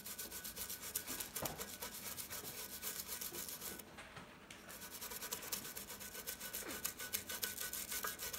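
A fairly soft bristle brush scrubbing the painted base of a KitchenAid stand mixer in quick back-and-forth strokes, working degreaser into baked-on grease and grime to break it up, with a short pause about four seconds in.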